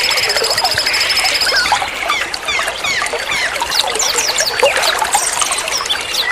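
Several songbirds chirping and trilling over running water. A fast even trill runs through the first second and a half, then many quick downward-sweeping notes.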